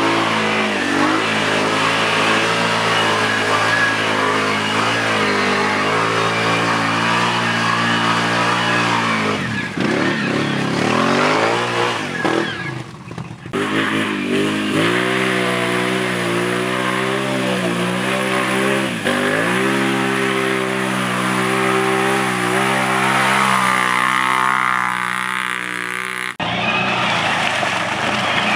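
Can-Am ATV's V-twin engine being ridden hard, revving up and down and holding speed in between. The sound breaks off suddenly about 13 and 26 seconds in, where a new stretch of riding starts.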